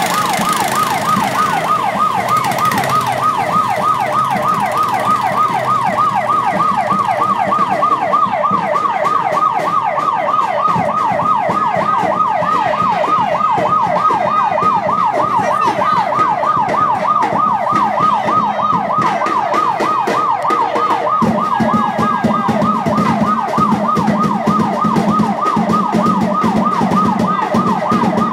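Electronic yelp siren sweeping rapidly up and down in pitch, about four times a second, without a break. A low steady hum joins about three quarters of the way through.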